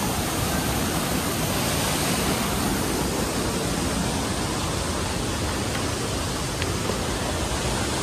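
Steady rush of a mountain stream's waterfall cascade, white water tumbling over boulders.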